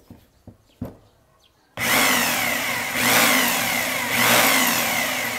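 Corded electric drill motor started abruptly about two seconds in and run hard for about four seconds, its whine sagging in pitch and picking back up twice, then winding down as the trigger is released.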